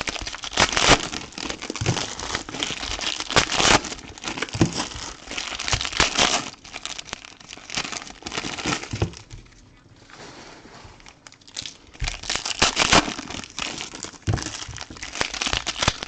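Plastic wrapping of a trading card box crinkling as it is handled and torn open by hand, in irregular crackly bursts with a quieter spell about halfway through.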